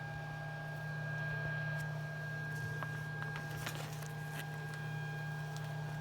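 3D printer's fans humming steadily while the printer preheats its bed and nozzle before a print, with a few faint clicks in the middle.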